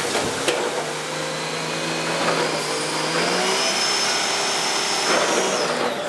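Large wheeled log stacker running, its engine and a high hydraulic whine steady, the whine dropping away near the end, as a bundle of logs splashes into the log pond at the start.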